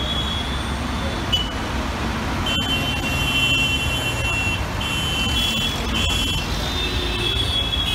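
Heavy, congested city road traffic: a steady low rumble of many engines, with vehicle horns honking again and again over it. The honks are high-pitched, the longest held for about two seconds.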